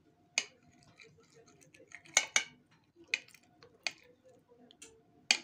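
Knife cutting through a panna cotta, its blade clicking against the plate: about seven short, sharp clicks at uneven intervals.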